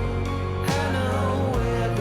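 Background music: a song with a steady beat and a sung melody.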